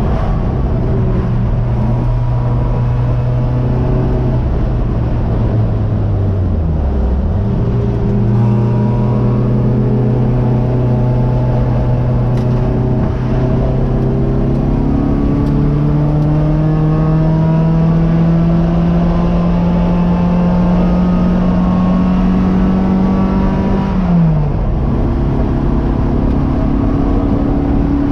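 Race car engine heard from inside the cockpit, running hard on track. Its pitch dips and recovers about six seconds in, climbs slowly and steadily for about sixteen seconds, then drops sharply near the end.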